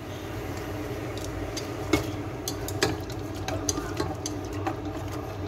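Water bubbling at a boil in a metal pot while wooden chopsticks stir peeled shrimp, knocking against the pot several times. The strongest knocks come about two and three seconds in.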